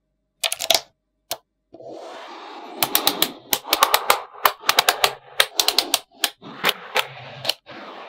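Small magnetic balls clicking and snapping together: a few sharp clicks at first, then a quick, irregular run of clicks from about three seconds in, over a continuous hiss of the balls being moved about.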